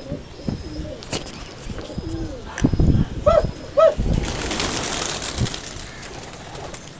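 Domestic gola pigeons cooing in their loft, with two short coos about halfway through and a few scattered clicks. A rushing noise lasting about a second follows the coos.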